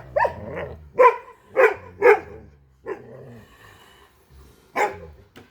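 A dog barking: a quick run of short barks over the first two seconds or so, then a few more, spaced out.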